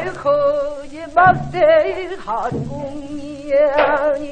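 Pansori sung by a woman in a strained, held voice with wide, slow vibrato, punctuated by a few strokes of the buk barrel drum. It is an early gramophone-record recording with a muffled top end.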